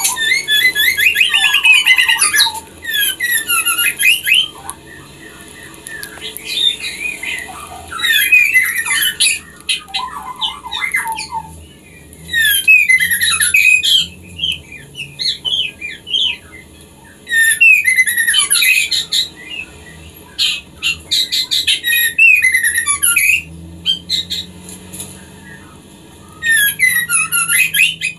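Female white-rumped shama (murai batu) calling in about six bursts of rapid, high chirps and chattering, a few seconds apart: the call of a hen in breeding condition summoning a male.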